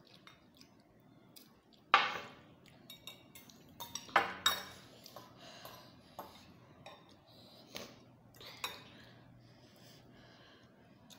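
Metal forks clinking and scraping against glass bowls, in scattered sharp clinks; the loudest comes about two seconds in and a cluster of them just after four seconds.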